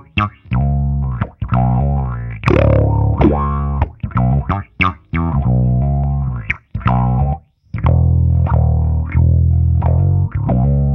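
Fender Precision Bass played through an EarthQuaker Devices Spatial Delivery envelope filter (auto-wah) into a Fender Bassman amp and 4x10 cabinet: a funky line of short plucked notes with gaps between them, each attack opening a filter sweep. A last note is left ringing near the end.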